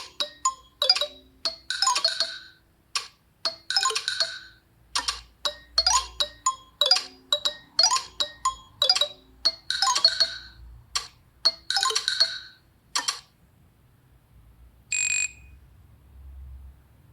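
A stock Nokia 3 (TA-1032) ringtone: a brisk melody of short, bell-like notes, each dying away quickly, that stops about 13 seconds in. A single short blip follows a couple of seconds later.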